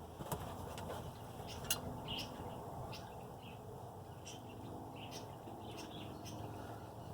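Two sharp clicks in the first two seconds as the rear differential cover and its bolts are handled, over a low steady background, with short bird chirps now and then.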